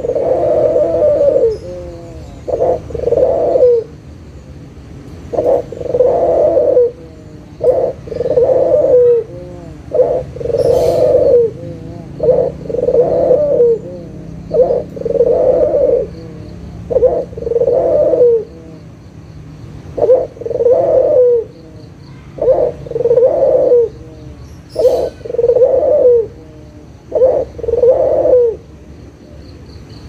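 Barbary dove (domestic ringneck dove, 'puter') cooing over and over, about a dozen two-part coos roughly every two and a half seconds: a short note, then a longer, lower-pitched rolling note.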